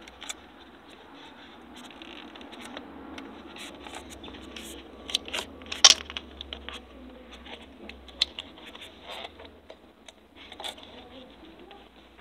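Scattered clicks, taps and light scrapes of small objects and the phone being handled on a cluttered desk, with the sharpest click about six seconds in.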